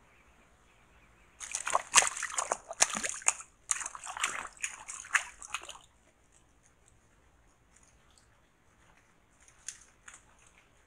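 An animal splashing and sloshing through a shallow muddy pool, in irregular bursts for about four and a half seconds, starting just over a second in; a few faint ticks and splashes follow near the end.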